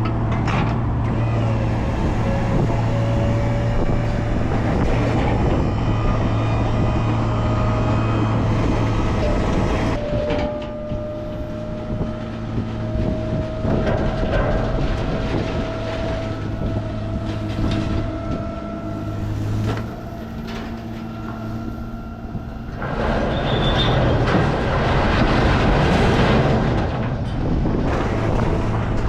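Vehicle on the move: steady engine hum and road noise, with a thin whine that slowly rises in pitch. The noise grows louder about 23 seconds in.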